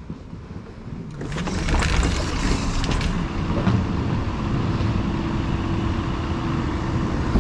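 Quiet indoor room tone that, about a second in, gives way to the outdoor traffic noise of an airport curbside as the sliding doors are passed: vehicle noise with some sharp clicks, then a steady engine hum from about four seconds in.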